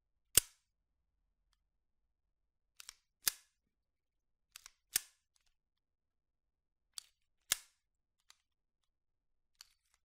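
Springfield Armory 1911 pistol's steel slide working under a heavy recoil spring: it snaps shut with a loud metallic clack just after the start, then is racked three more times, each a light click as it is drawn back followed by a louder clack as it slams forward. A couple of fainter clicks follow near the end.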